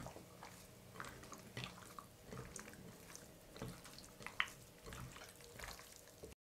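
Faint, scattered wet squishes and small clicks of raw chicken wings, still damp from buttermilk, being turned and rubbed with dry spices by hand in a glass bowl. The sound cuts out just before the end.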